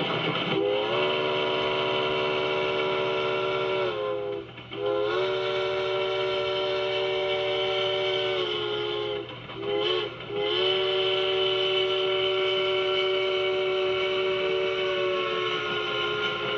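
Chime train whistle sounding a chord of several notes in four blasts: two long, a short one about ten seconds in, then a final long one. This is the long-long-short-long pattern sounded for a grade crossing. Each blast bends up in pitch as it starts and sags as it ends.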